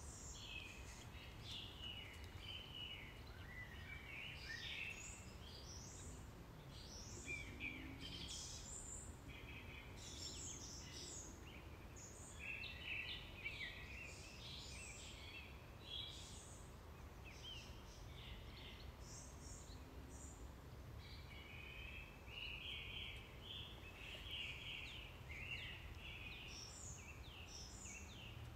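Small birds chirping and singing, many short quick calls coming one after another, faint over a steady low outdoor rumble.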